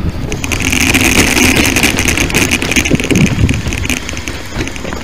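Touring bicycle with a trailer riding along a rough track: a steady rumble of tyres with many clicks and rattles, and wind buffeting the microphone, easing off near the end.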